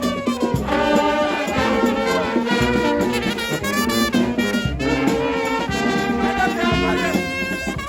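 Music led by brass instruments, with held horn-like notes over a steady low beat.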